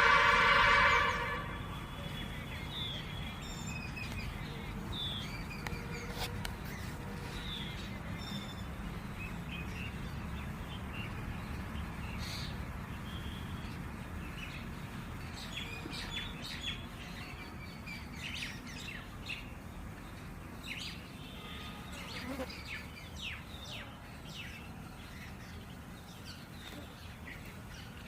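Small birds chirping on and off, short high notes, over a steady low background rumble. A loud steady tone with even overtones sounds for about a second and a half at the start, then stops.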